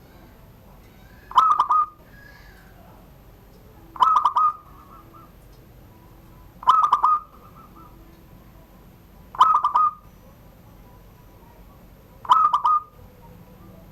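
Zebra dove (perkutut) cooing its song in the 'surung gdor' style: five short phrases of a few quick, clear notes each, repeated at an even pace about every three seconds.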